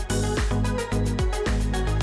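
Electronic dance background music with a steady kick-drum beat, about two beats a second, and a gliding bass line.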